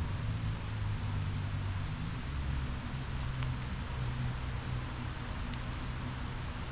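Light rain falling steadily on forest leaves, an even hiss with a few faint ticks of drops, over a steady low rumble.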